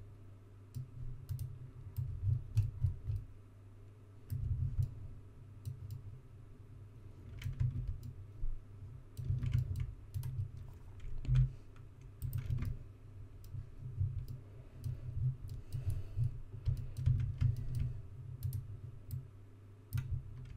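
Computer mouse clicks and keyboard key presses, sparse and irregular, over dull low thuds that come and go.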